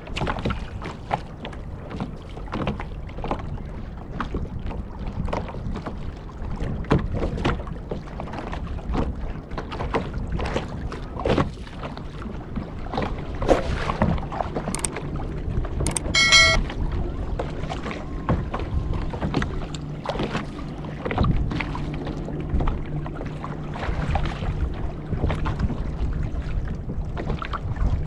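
Irregular knocks, bumps and water noise from handling gear and paddling on a fishing kayak. A brief high tone sounds about sixteen seconds in, and a low steady hum runs through the second half.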